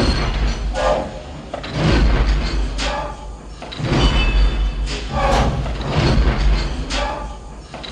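Star Wars AT-AT walker walking sound effect: a heavy low footfall about every two seconds, with sharp mechanical clanks and squealing servo sounds from the legs between the steps.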